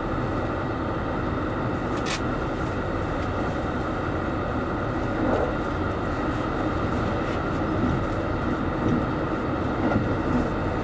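Steady running noise of a JR Central Series 85 diesel express railcar at speed, heard from inside its leading car: engine drone and wheels on rail. A single sharp click about two seconds in, with a few fainter knocks later.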